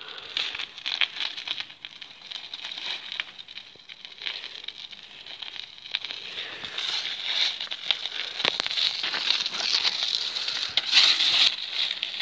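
Crunching and crackling of packed snow, a dense run of fine crackles that grows louder after the halfway point, with one sharp knock about eight seconds in.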